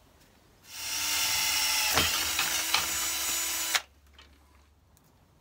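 Power drill running for about three seconds, boring a rivet hole through two clamped sheets of galvanized steel: it starts about a second in, holds a steady whine with a couple of sharp clicks partway, and stops abruptly near the end.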